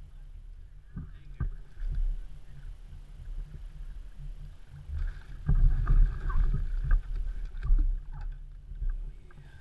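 Water splashing and sloshing against a fishing kayak as a large lingcod is brought alongside and scooped into a landing net, loudest from about halfway through. A few knocks of gear against the hull, over a steady low rumble of wind on the microphone.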